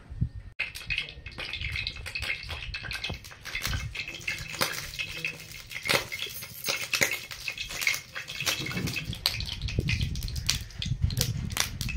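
Cooking oil heating in an aluminium kadai, sizzling and crackling with many sharp pops, starting about half a second in, over a low rumble.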